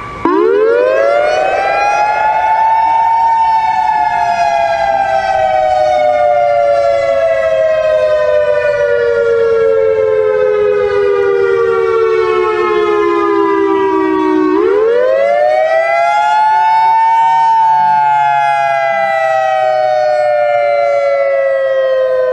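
Civil-defence-style siren wail for an emergency alert alarm. Two close tones sweep up sharply over about three seconds, then sink slowly for about eleven seconds. A second wind-up begins about fourteen seconds in and starts falling again a few seconds later.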